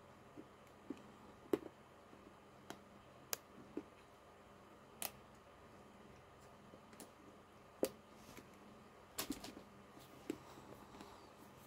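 About a dozen short, sharp clicks at irregular intervals over a faint steady hum.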